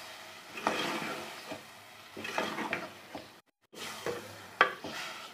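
Chana dal being stirred into fried masala in a hot pot: a cooking utensil scraping and knocking against the pot in irregular strokes, over a light sizzle. The sound drops out briefly about three and a half seconds in.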